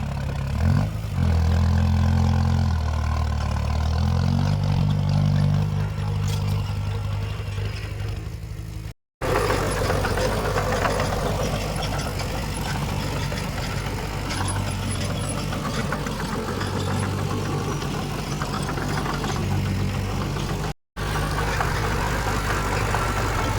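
Heavy diesel earthmoving machinery running, the engine note rising and falling under load. The sound cuts out completely for a split second twice.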